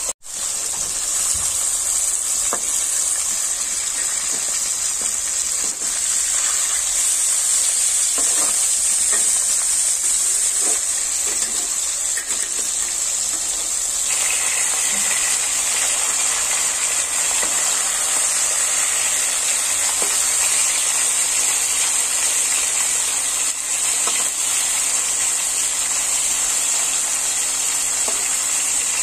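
Marinated fish steaks frying in hot oil in a kadhai: a steady sizzle with a few small pops. The sound changes a little about halfway through.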